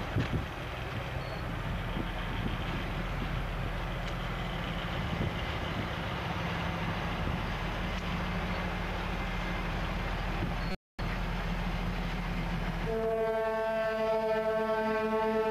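Freight train of car-carrier wagons rolling past, hauled by an ST44 diesel locomotive, a steady rumble of wheels and engine. The sound cuts out for a split second partway through, and about two seconds from the end a steady held chord of several tones comes in.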